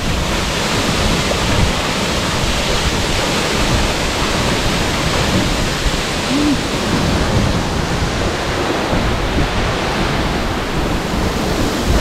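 Tall waterfall plunging into a pool: a steady, loud rush of falling water.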